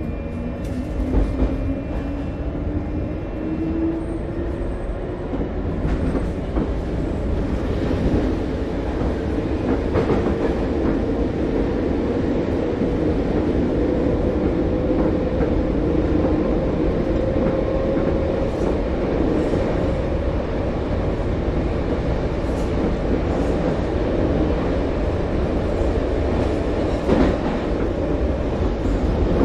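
Subway train running with a continuous low rumble, its motor whine rising slowly in pitch over the first fifteen seconds or so as it picks up speed, then holding steady. Scattered clicks come from the wheels on the rails.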